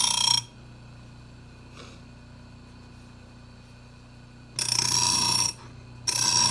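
Grinder wheel grinding the edge of a steel lawnmower blade, with a ringing squeal on each pass: one pass ends just after the start, then two short passes about five and six seconds in. A quieter steady hum runs between the passes.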